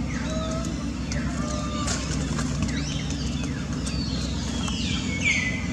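Several high calls, each falling in pitch, from animals around the forest floor, one of them loudest near the end. Under them runs a steady low rumble.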